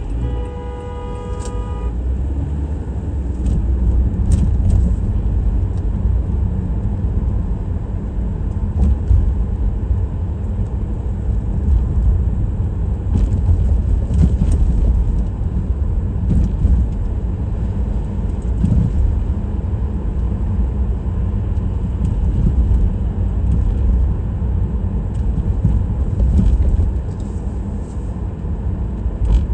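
Steady low rumble of a car driving on city streets. Near the start, a car horn sounds once for about a second.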